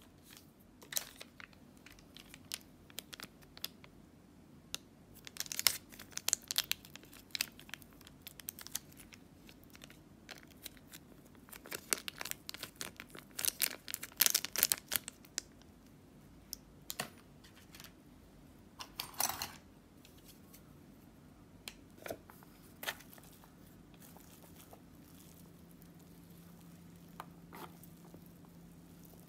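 Foil seasoning sachets for instant yakisoba being torn open, crinkled and squeezed out, a run of sharp crackling rustles in several bursts, the loudest about twelve to fifteen seconds in.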